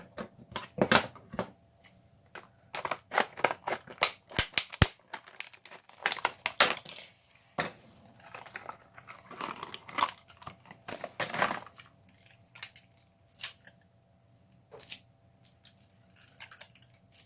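Factory-sealed packaging of a new lock cylinder being torn open and unwrapped: irregular crinkling, tearing and rustling with scattered clicks, in uneven bursts.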